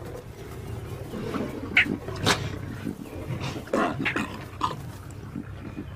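Lionesses snarling and growling in a run of short, sharp, irregular outbursts as they attack a lion cub.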